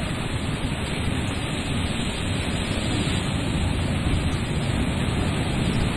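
Sea surf breaking against a rocky shore, a steady rush of water, with wind buffeting the microphone.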